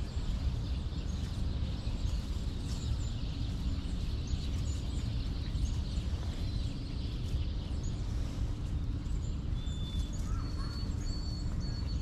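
Small songbirds calling faintly over a steady low rumble of background noise: scattered short high chirps, then a thin high whistle held for a couple of seconds near the end.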